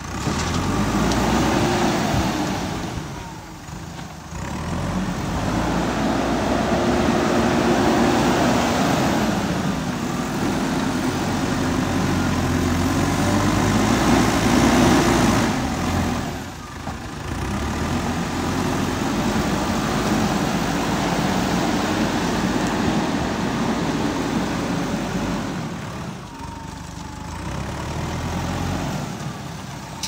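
JCB 3CX backhoe loader's diesel engine running hard as the front loader works, its pitch rising and falling with the load, with three short lulls.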